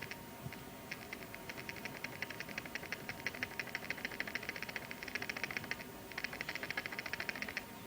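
A squeaky noise from an eye: a fast run of high, sharp clicks, broken by a short pause about six seconds in before it starts up again.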